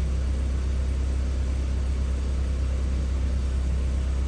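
A machine running steadily, giving an even low hum with no change in pitch or level.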